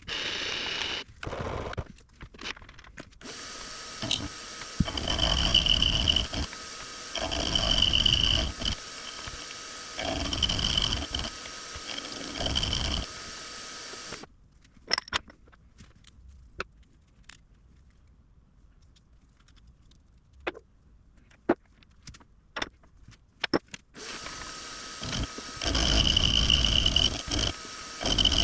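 Precision Matthews PM-25MV benchtop milling machine running, its cutter taking repeated passes on small clamp bars, each pass bringing a high-pitched cutting whine over the motor hum. About halfway through the machine goes quiet apart from a few sharp clicks, and it is running and cutting again near the end.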